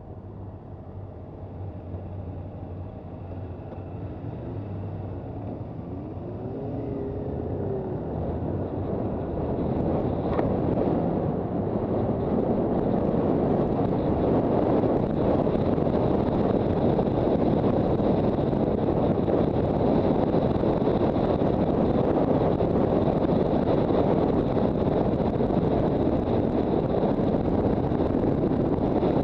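Wind rushing over the microphone of a Honda CB400 Super Bold'or motorcycle on the move, its engine a low steady hum at first. The wind noise grows louder over about the first dozen seconds and then holds steady, drowning the engine.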